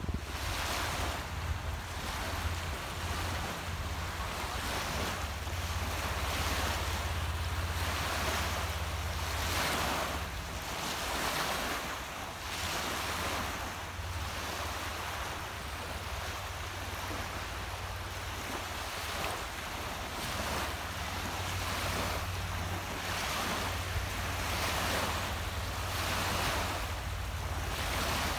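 Small wind-driven waves lapping and washing onto a sandy lakeshore, a swell of hiss about every two seconds. A steady low rumble of wind buffets the microphone throughout.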